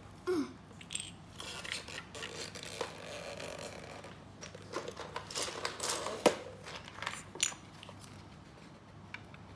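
Small plastic building bricks clicking and rattling as they are handled and sifted through, with scattered sharp clicks and a loud click about six seconds in.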